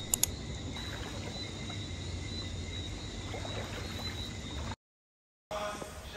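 Pool water sloshing and lapping around a wading swimmer, under a steady high-pitched night chorus of frogs or insects; it cuts off abruptly a little before the end.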